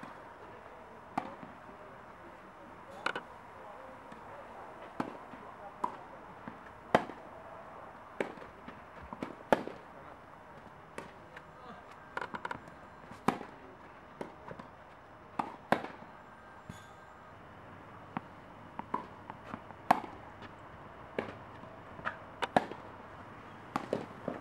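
Tennis balls struck by rackets and bouncing during a rally: sharp pops at uneven intervals, about one every second or so, some loud and close and others fainter from neighbouring play.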